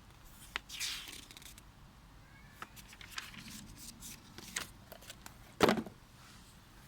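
Handling noise from the angle grinder and its packaging: rustling, several light clicks and taps, and one loud knock about five and a half seconds in.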